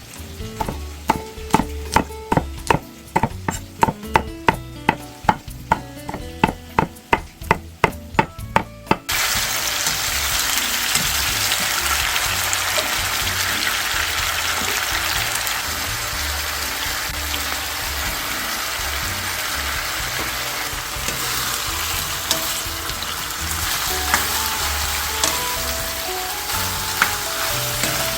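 A knife chopping on a cutting board at about two to three strokes a second. About nine seconds in this gives way to a steady sizzle of food frying in a pan.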